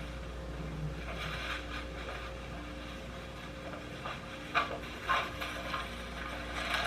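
Quiet room with a faint steady hum, broken by a few soft clicks or knocks about four and five seconds in.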